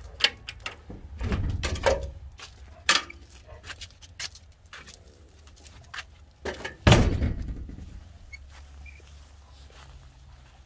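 Metal side gate being worked: latch clicks and clatter as it opens about a second in, then a loud thump about seven seconds in as it swings shut.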